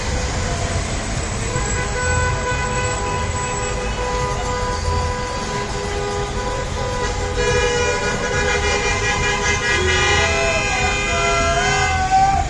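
Many vehicle horns honking together in celebration, long overlapping held tones over a haze of street noise. More horns join about halfway through, and one wavers in pitch near the end.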